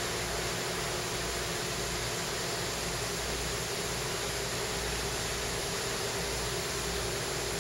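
Steady, even hiss with a faint steady hum: the room noise of a shop with its air conditioning running.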